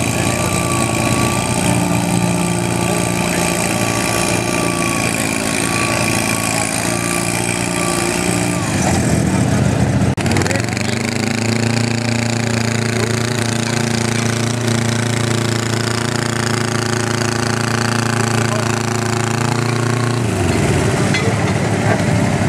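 Garden tractor engines running hard at high revs while pulling a weight sled. About ten seconds in the sound changes abruptly to another tractor's engine held at a steady high pitch, which changes again about twenty seconds in.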